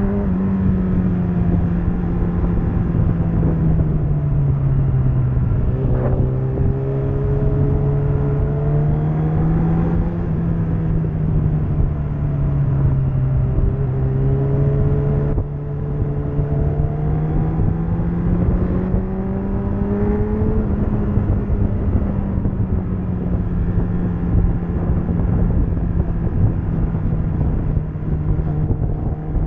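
Suzuki Bandit 650's inline-four engine running while the bike is ridden, heard from the rider's position. Its low, steady note slowly rises and falls as the rider accelerates and eases off, with a faint higher tone climbing in pitch several times, over a rush of wind on the microphone.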